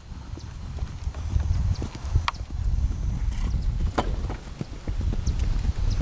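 Hoofbeats of a pinto mare cantering on arena sand: repeating dull thuds with a couple of sharp clicks.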